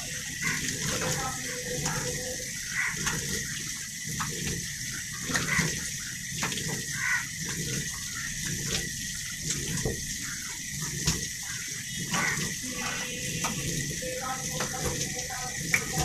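Tap water running into a stainless steel sink, with repeated splashes as someone washes their face with handfuls of water.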